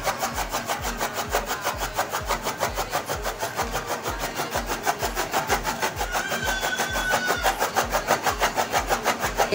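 Engine running steadily with a regular low thump, about three beats a second. A brief faint high tone sounds about six seconds in.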